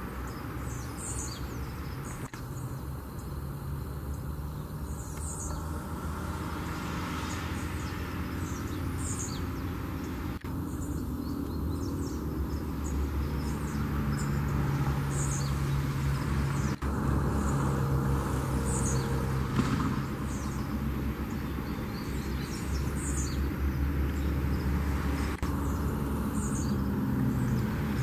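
Red pileated finch (tico-tico-rei) singing its fluted song: short, high, thin whistled phrases repeated every few seconds. A steady low rumble runs underneath.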